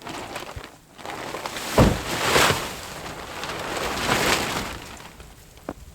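Tarp rustling as it is pulled down, with a thump about two seconds in and a second swell of rustling around four seconds.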